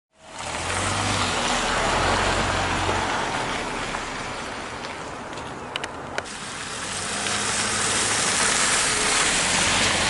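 A car driving on a gravel road, its tyres crunching over the stones under a low engine hum. The sound dips in the middle and grows louder toward the end, with a few sharp clicks a little past the middle.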